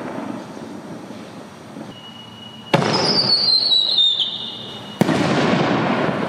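Whistling-tail aerial firework shells. The crackle of one burst dies away. A little under three seconds in comes the launch thump, then a shrill whistle that falls slightly in pitch for about a second and a half as the tail spins upward. About five seconds in the shell bursts with a sharp bang, followed by a decaying crackle.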